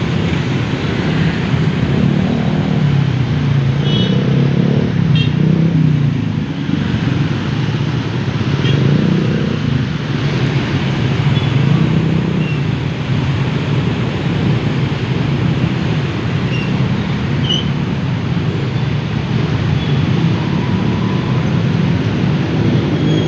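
Heavy road traffic: a continuous mix of vehicle engines running and passing, with their pitch rising and falling as they speed up and slow down, and a few short high chirps scattered through.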